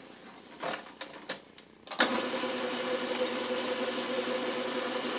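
A few light clicks and knocks, then about two seconds in the 1947 Wards Logan metal lathe is switched on and starts suddenly, running steadily with an even motor hum and drive whir.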